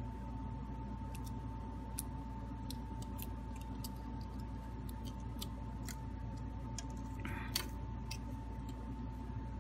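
Small scattered clicks and taps of fingers and parts on an opened smartphone as its motherboard is worked free and lifted out of the frame, with one sharper click about three-quarters of the way through. A steady hum runs underneath.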